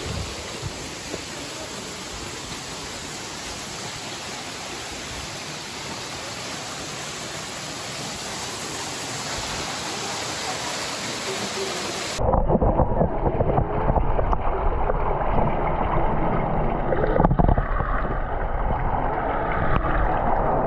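Waterfall and stream water rushing, a steady even hiss that slowly grows louder. About twelve seconds in it cuts abruptly to a louder, muffled rush of water, as heard by a camera in the pool.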